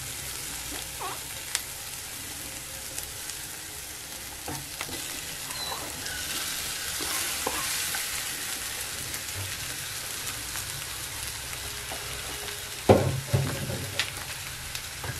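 Mashed green peas frying in a little oil in a nonstick frying pan: a steady sizzle as the peas' extra water cooks off, with soft scrapes of a wooden spatula. Near the end, two sharp knocks as mashed boiled potato is tipped in from a bowl.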